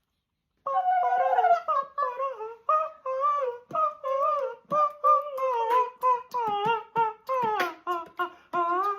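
A high voice singing a wordless tune in short phrases, the notes bending up and down; it starts suddenly about a second in after a brief silence.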